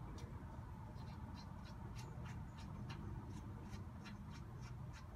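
Hand ratchet clicking slowly and a little unevenly, about three clicks a second, as a shock absorber mounting bolt is worked loose, over a steady low hum.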